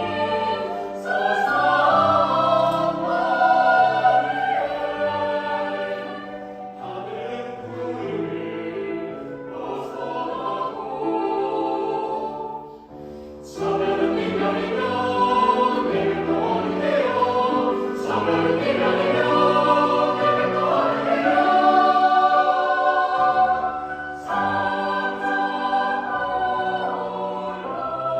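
Choir singing in harmony, holding long chords. The sound thins to a short lull about halfway through, then the choir comes back in fuller and louder.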